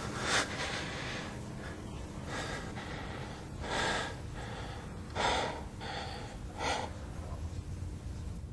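A man's heavy breaths: five short, sharp gasps about a second and a half apart, over a low steady background rumble.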